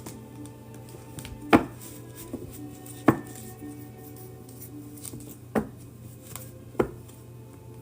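Four sharp knocks or taps, spaced a second or more apart, over faint soft background music.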